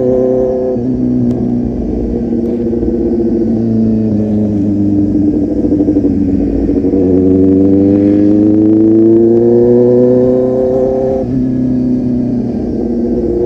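Kawasaki Z800's inline-four engine through a full-system aftermarket exhaust, heard from the moving bike. The note drops just under a second in and sags, then rises steadily for several seconds under acceleration, and drops sharply near the end at a shift up.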